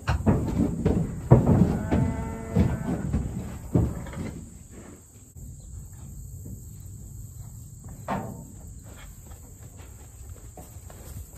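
Dexter cattle stepping into a livestock trailer: a dense clatter of hooves and knocks for the first few seconds, with a short pitched squeal about two seconds in, then quieter scattered knocks. A steady high insect buzz runs underneath.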